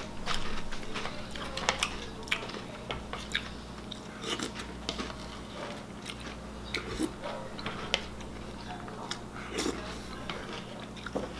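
Close-up chewing and crunching of crunchy cereal in milk, with the metal spoon clinking and scraping in the plastic bowl: irregular sharp crunches and clicks over a steady low hum.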